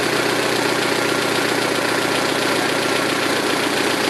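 2006 Saturn ION Redline's supercharged 2.0-litre LSJ four-cylinder idling steadily with a rapid, even ticking from the valvetrain. This is lifter tick from the stock lifters running with GMR camshafts.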